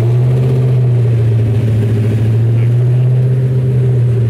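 Corvette ZR1's rebuilt LT5 32-valve V8 running loud and steady through open headers, warmed up to operating temperature, holding one engine speed without rising or falling.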